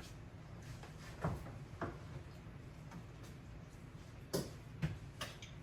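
Light clicks and knocks of kitchen items being handled, about five scattered sharp taps.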